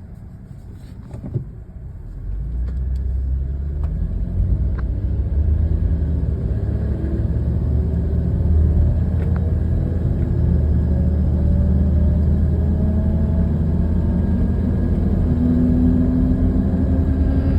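1998 Toyota 4Runner Limited accelerating, with a loud low grinding buzz that comes in about two seconds in and holds, and a fainter whine rising slowly in pitch as speed builds. This is the noise that appears only under acceleration.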